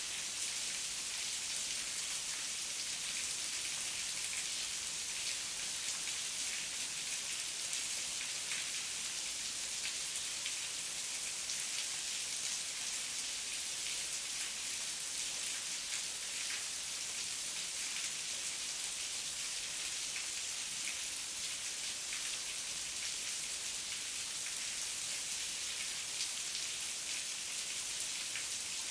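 Heavy rain falling steadily: an even hiss thick with the ticks of many drops, unchanging throughout.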